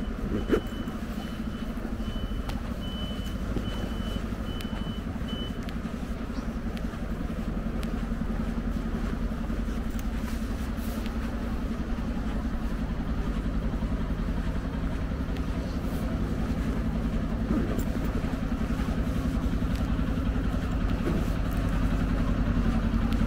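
A motor vehicle's engine runs steadily close by, slowly growing louder toward the end. For the first five seconds or so a high-pitched electronic beep repeats about twice a second over it, then stops.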